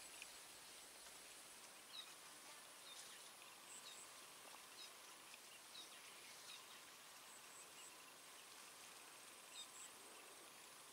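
Near silence: faint outdoor ambience with a steady faint high hiss and a few faint, short high chirps scattered through it.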